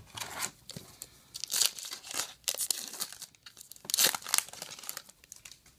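Foil wrapper of a Topps Star Wars Galactic Files trading-card pack being torn open and crinkled in the hands, in a series of short rips and rustles.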